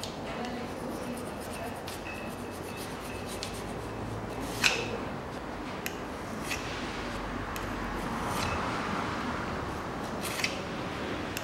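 A thin metal blade scraping and rubbing old head-gasket residue off the deck face of a Daewoo Nexia 1.5 engine block. There are a few sharp clicks of the blade on the metal, the loudest about four and a half seconds in, and the scraping swells a little near the end.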